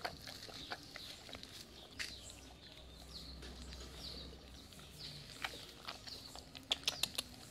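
A pit bull-type dog licking an empty aluminium bowl clean: faint wet licks and small clicks of tongue and muzzle against the metal, with a quick run of sharper clicks near the end.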